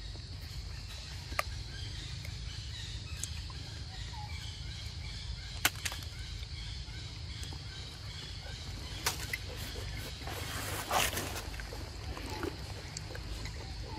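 Outdoor ambience: a steady low rumble under a steady high hiss, broken by a few sharp clicks and crackles, the loudest cluster about eleven seconds in.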